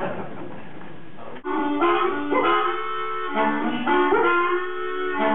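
Blues harmonica playing held notes and chords, with several notes bent upward into pitch. It comes in about a second and a half in, after a short stretch of even noise.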